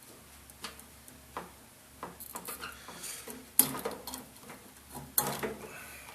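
Light clicks and metallic clinks as parts of an opened microwave oven are handled, with two sharper knocks about three and a half and five seconds in.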